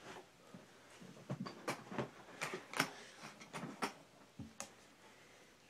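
Faint, scattered clicks and light knocks, about ten at irregular spacing, as the BMX bike is handled and set up to demonstrate its rear hub.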